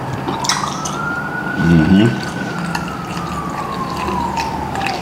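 An emergency vehicle's siren wailing: one tone rising slowly over the first two seconds, then falling away toward the end before starting to rise again. Scattered clicks and smacks of eating, and a short hum about two seconds in.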